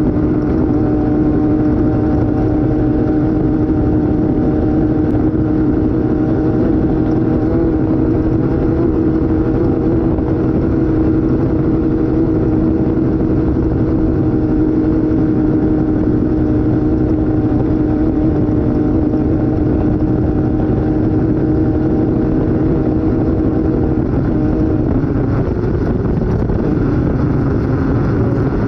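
Off-road race vehicle's engine running at steady high revs, holding an even pitch for most of the stretch, then its note shifts and wavers near the end as the throttle or gear changes.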